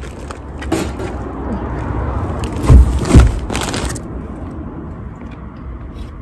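Two loud, dull thumps about half a second apart near the middle, over a low rumble.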